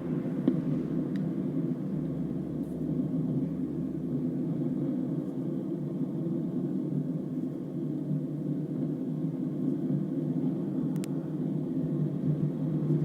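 Hino bus riding along, heard from inside the cabin: a steady low drone of engine and road noise, with a few faint clicks and rattles.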